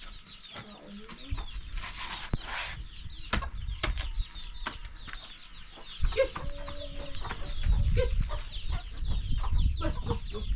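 Chickens clucking amid many short, high chirps, with a few sharp knocks and a low rumble in the second half.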